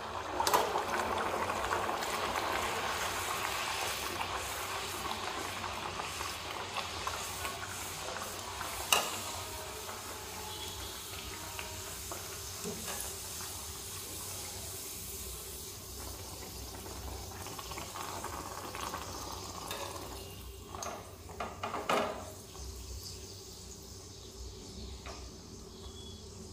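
A stuffed kachori deep-frying in hot oil: a loud sizzle and bubbling as it goes in, slowly settling to a quieter steady fry. A sharp click about nine seconds in and a few more near the end from the wire skimmer against the pan.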